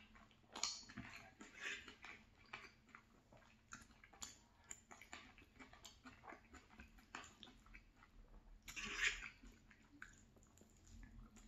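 Close-miked chewing of stir-fried chicken and vegetables: soft, irregular wet mouth clicks and crunches, with one louder mouth sound about nine seconds in.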